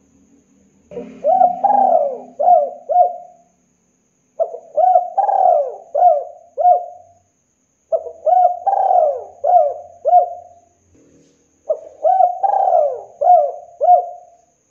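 Spotted dove cooing: four phrases about three and a half seconds apart. Each phrase is a short coo, then a longer rolling coo, then two or three short clipped coos.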